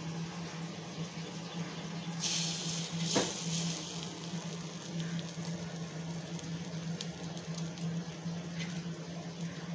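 Gunta punugulu batter frying in a paniyaram pan on a gas stove: a steady soft sizzle over a low hum, with a fork scraping and tapping the pan as the balls are turned. A brighter burst of sizzling comes about two seconds in, and the fork clicks against the pan about three seconds in.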